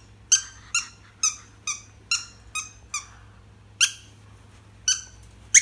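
A dog's squeaky toy squeaking in short, high squeaks, each dropping slightly in pitch: about two a second for three seconds, then three more spaced about a second apart, the last the loudest.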